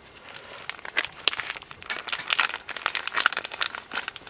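Hands mixing a wet, sticky bannock dough: irregular crinkling with many small clicks.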